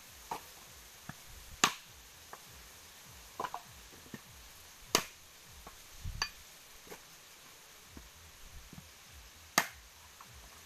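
Machete striking husked coconuts to split them open: three sharp, loud cracks a few seconds apart, with lighter knocks and taps between.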